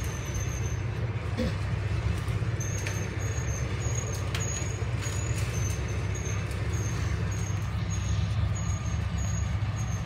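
A large engine running steadily with a low, even drone, and a short high chirp repeating about twice a second over it.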